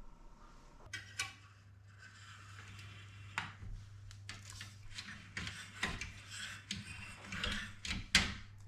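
Kitchen handling sounds: a run of light clicks, knocks and rustling as utensils and containers are moved and set down on a work surface, with two sharper knocks, the last near the end the loudest. A low steady hum starts about a second in.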